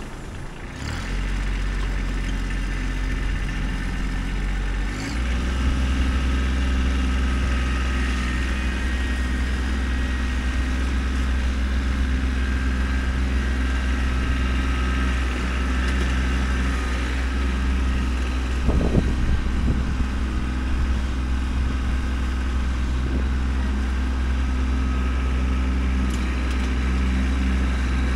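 Kubota B2620 compact tractor's three-cylinder diesel engine running steadily, stepping up louder about five seconds in as it is throttled up. A short knock comes past the middle.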